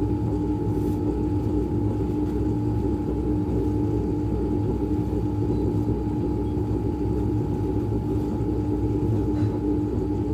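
Bakery machinery running: a steady hum with a few constant tones over a low rumble.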